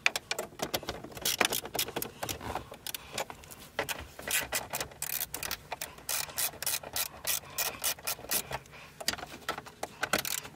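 Ratchet wrench clicking in quick runs with short pauses, backing out the 10 mm bolts that hold the radio in the dash.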